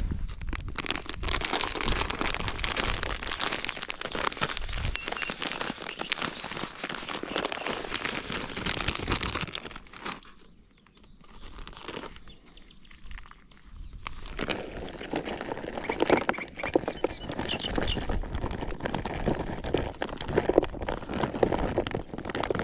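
Plastic bait packaging crinkling and rustling as carp groundbait ingredients are handled and mixed, with a short lull about ten seconds in.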